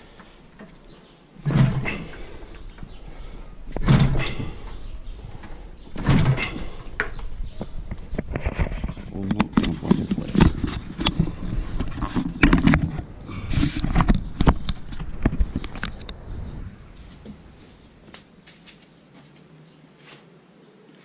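Yamaha RD 350's kick-start lever kicked hard three times, about two seconds apart, the engine turning over without settling into a steady run. After them come several seconds of irregular knocking and rattling that die away.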